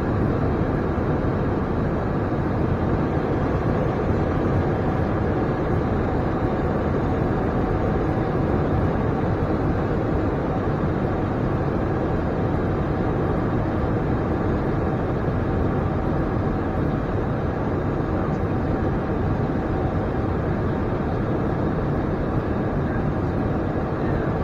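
Steady rushing flight noise inside the cockpit of an Embraer E175 airliner on approach, with a few faint steady tones over it and no change.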